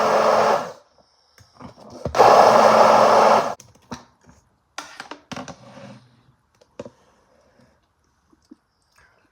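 Ambiano 3-in-1 hand blender running in two short pulses: the first stops under a second in, and the second runs about a second and a half, starting about two seconds in. A few clicks and knocks of handling follow.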